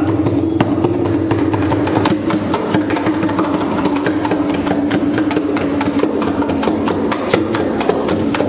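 Dholak drum played in a fast, busy rhythm of sharp hand strokes, over a steady droning tone held beneath it.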